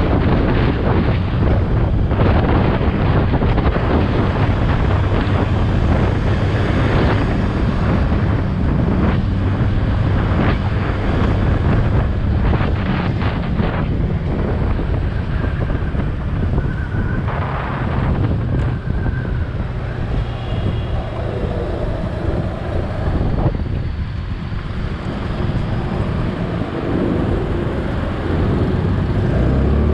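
Wind buffeting the microphone of a moving motor scooter, with the scooter's small engine humming steadily underneath. The wind noise eases somewhat about two-thirds of the way through.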